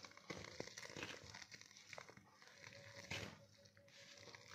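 Faint, intermittent scraping and crumbling of a steel spatula mixing maize flour with just-boiled water in a steel bowl, with a louder scrape about three seconds in.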